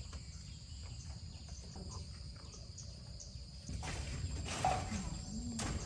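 Insects buzzing steadily with short high chirps over them, a stretch of rustling or handling noise about four seconds in, and a sharp click near the end.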